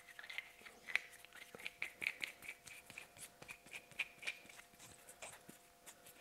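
Faint, irregular clicks and scrapes of metal parts in the hands as a threaded adapter is screwed onto a diesel injector body.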